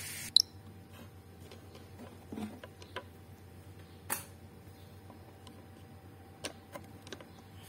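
A few short clicks and taps from handling a circuit board and a small plastic wire connector on a metal workbench. The sharpest click comes about half a second in, with a clear tap near the middle and fainter ones towards the end.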